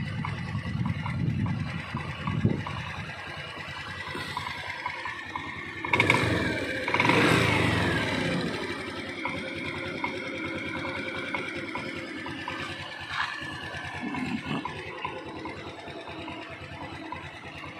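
Small scooter engine idling steadily while its idle is set by the carburettor's air screw; the idle had been running low. About six seconds in it is blipped once, the pitch rising and then sliding back down to idle.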